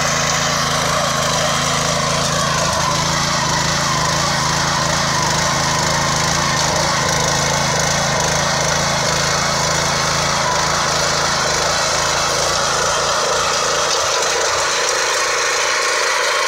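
Small engine of a walk-behind power weeder running steadily under load as its rotary tines till the soil.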